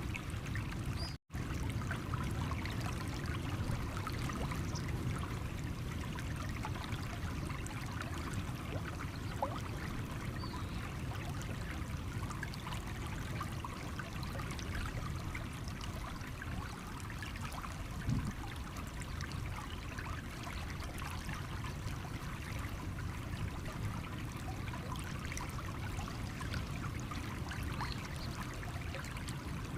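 Stream water running over stones: a steady rush with fine trickling and splashing, broken by a split-second dropout about a second in.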